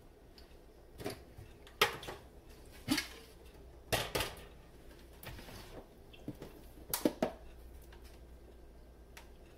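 Kitchen dishes and containers being handled on a counter: a string of separate knocks and clatters, the sharpest about two seconds in.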